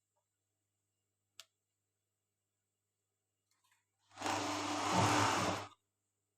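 Overlock sewing machine running in one short burst of stitching, about a second and a half long, starting and stopping abruptly. A small click comes earlier.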